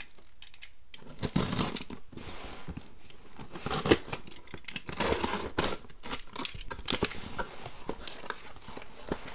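A cardboard shipping box being opened by hand: tape cut and ripped, flaps and packing handled, in an irregular run of scrapes, rips, crinkles and clicks, with one sharp snap about four seconds in.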